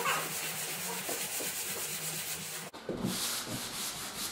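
Sandpaper rubbing along the rounded edge of a timber nosing strip by hand, in quick back-and-forth strokes. The strokes break off sharply about two-thirds of the way through and start again.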